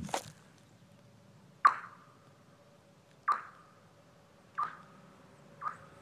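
Golf ball bouncing on thin frozen pond ice: four impacts, each setting off a short ringing, zappy chirp in the ice. The bounces come closer together and grow quieter.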